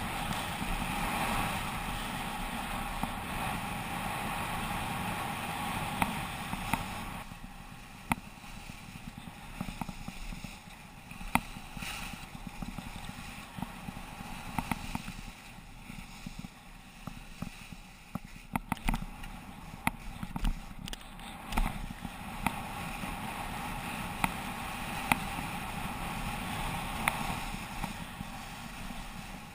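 Sliding downhill on packed, rutted snow: a steady scraping rush of edges on the snow mixed with wind on the microphone, louder in the first few seconds and again near the end. Through the middle stretch the rush drops and many short sharp knocks and clicks come through.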